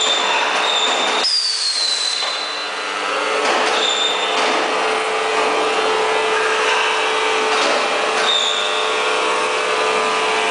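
Steel drum seam welding machine running as it welds the seam of a drum shell: a steady hum over continuous mechanical noise, with brief high squeals now and then, one falling in pitch about a second in.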